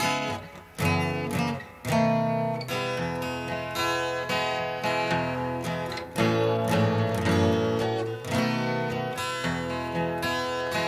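Background music led by acoustic guitar, plucked and strummed chords with no singing.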